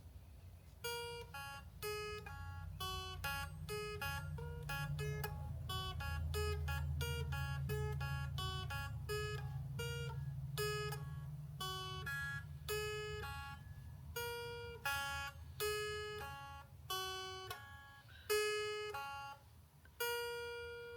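Intro music: an acoustic guitar picking a slow melody of single plucked notes, ending on one longer held note near the end, over a steady low hum.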